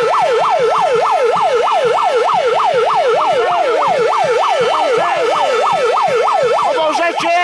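Electronic siren sounding a fast yelp, its pitch sweeping up and down about four times a second, loud and steady until it stops about seven seconds in. Lower, slower rising-and-falling wails sound underneath.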